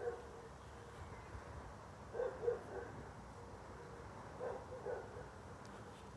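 An animal calling repeatedly in short pitched calls, two or three close together, the groups coming about every two and a half seconds.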